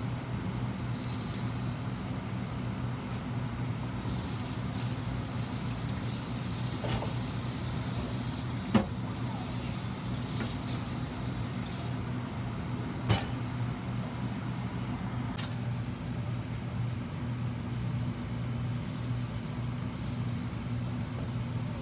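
Kitchen extractor fan running with a steady low hum, with a few sharp clicks over it, the loudest about nine and thirteen seconds in.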